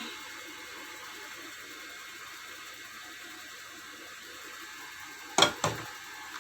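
A woman hiccuping once about five seconds in: a sudden sharp catch of breath with a quick second jolt right after it, over a steady background hiss.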